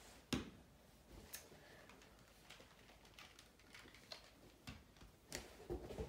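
Faint, scattered clicks and taps of a puzzle cube and a timer being handled and set down, the sharpest single click about a third of a second in and several more in quick succession near the end.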